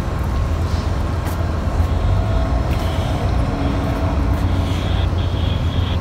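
Steady low rumble and hum beside a standing Amtrak Superliner passenger train, with faint steady whines over it, typical of idling locomotives and the cars' ventilation units.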